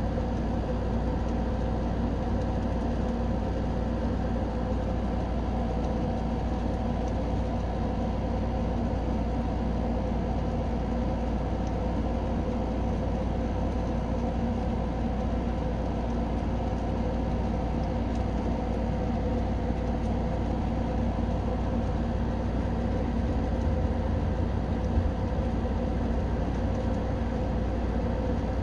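Steady machine hum with a few faint pings of the first light raindrops.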